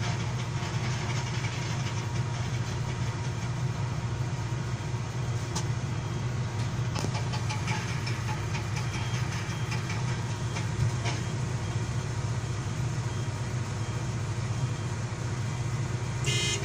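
Komatsu 220 excavator's diesel engine running steadily, with a few faint knocks and a brief clatter near the end.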